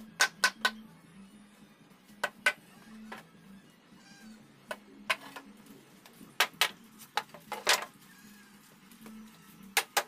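Hammer blows on a teak door frame, driving its joints home: sharp wooden knocks in uneven clusters of two or three, about fifteen in all, one of them near the end of the second half ringing longer than the rest.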